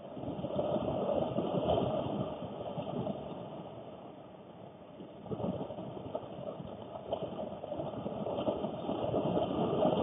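Heavy rain drumming on a car's roof and windows, heard from inside the car, swelling and easing in gusts: loudest about a second in and near the end, with a lull around the middle.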